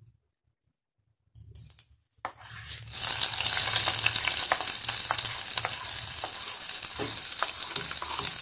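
Hot ghee tempering of cumin seeds, urad dal, curry leaves and chillies poured onto curd rice, sizzling with scattered pops and crackles. The sizzle starts suddenly about two seconds in, after near silence, and stays strong, easing slightly near the end.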